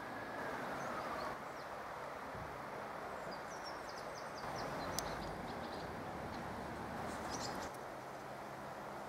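Outdoor ambience: a steady background noise with a few short bird chirps scattered through it. A distant siren's falling wail dies away in the first second or so.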